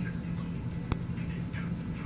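Room background: a steady low hum with faint indistinct higher sounds, and one sharp click about a second in.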